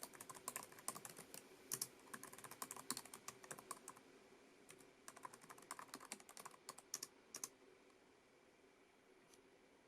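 Typing on a Lenovo ThinkPad TrackPoint Keyboard II: a quick run of soft key clicks that stops about seven and a half seconds in, with one faint keystroke near the end.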